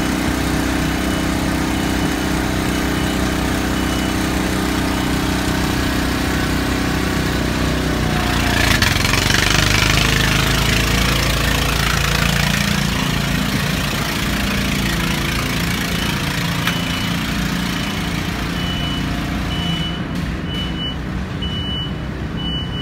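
Steady, loud machinery drone. A broad hissing swell builds about eight seconds in and fades over the next few seconds. A series of short, evenly spaced high beeps, like a warning beeper, sounds at the start and again in the last several seconds.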